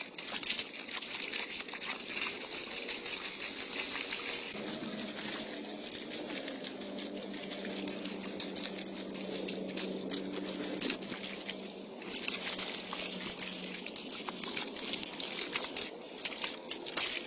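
Water trickling and splashing steadily. A low hum joins it from about five seconds in and fades out about fourteen seconds in.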